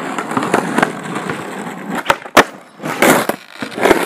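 Skateboard wheels rolling over rough pavement, then two sharp clacks of the board about two seconds in, the second the loudest. Rougher rolling and scraping follow as the board passes close by.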